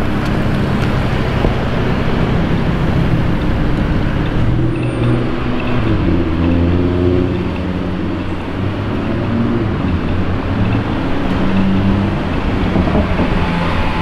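Audi R8 V10 Plus's 5.2-litre V10 engine and exhaust running loudly as the car drives off, its pitch stepping up and down, over street traffic.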